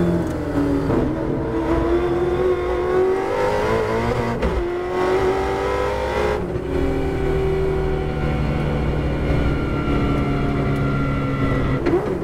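Holden Torana V8 race car engine heard from inside the cabin. It drops in pitch under braking, then revs up through the gears with upshifts about four and six and a half seconds in, then holds a steadier note.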